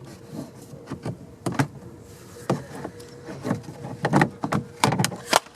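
Screwdriver prying a padded plastic trim piece off a car door panel: a string of irregular clicks and snaps as the plastic and its clips give way, loudest near the end.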